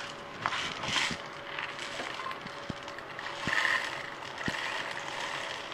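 Handling noise as a pepper grinder is opened and peppercorns are readied to fill it: soft rustles and a few light clicks.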